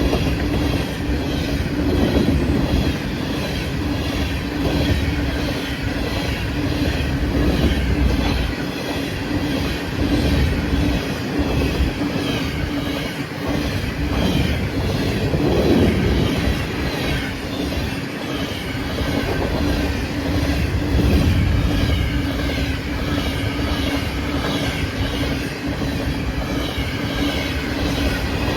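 Train cars rolling past on the CN main line, the steady rumble of steel wheels on rail with a steady low hum underneath.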